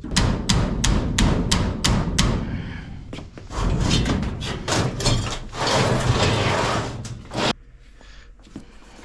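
Sheet-metal ductwork being banged loose: a quick run of sharp metal bangs, about three a second, then rough scraping and rattling that stops suddenly about seven and a half seconds in.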